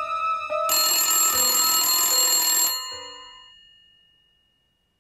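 Soft keyboard notes, then under a second in a telephone bell rings loudly for about two seconds and its ring dies away.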